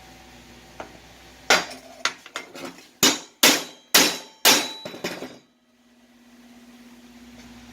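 Hammer striking steel stock: about a dozen ringing metal blows, the heaviest about half a second apart, then the hammering stops.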